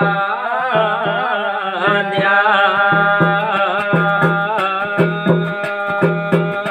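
Garhwali jagar folk music: a held, wavering melody over a pulsing low tone, with steady drum strokes keeping the beat.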